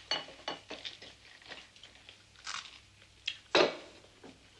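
Spoons and forks clinking and scraping against plates as people eat at a table: a string of short, irregular clinks, the loudest about three and a half seconds in.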